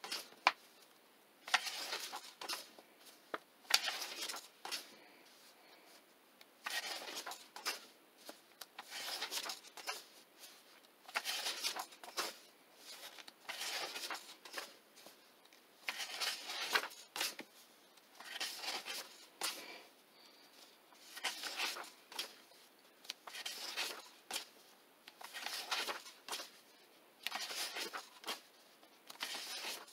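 Paper pages of a paperback coloring book being turned one after another: a papery rustle and swish about every two seconds, with small sharp clicks as the sheets are handled.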